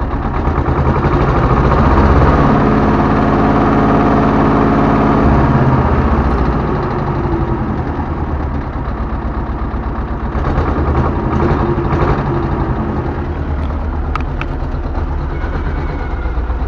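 T-25 Vladimirets tractor's two-cylinder air-cooled D-21 diesel engine running. The revs rise about a second in and settle back to a steady idle after about six seconds.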